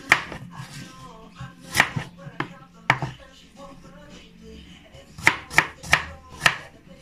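A kitchen knife chopping a green apple into small pieces on a cutting board: sharp single chops spaced a second or so apart, then a quick run of five near the end.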